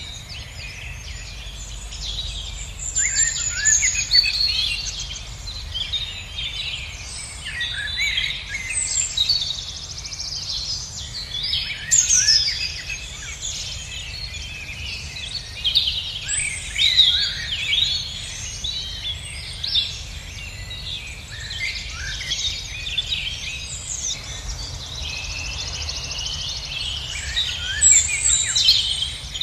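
Songbirds singing, many short high chirps and trills overlapping one another, over a low steady rumble.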